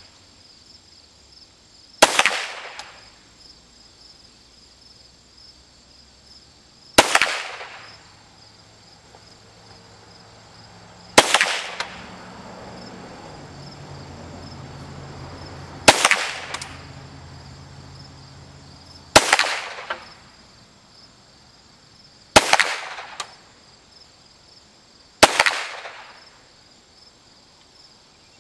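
Seven single shots from a Ruger Mark III .22 LR pistol firing CCI Stinger rounds, spaced about three to five seconds apart. Each is a sharp crack with a short echo.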